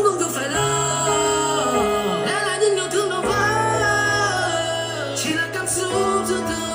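Pop song with a singing voice running through wavering, melismatic vocal lines over sustained bass notes.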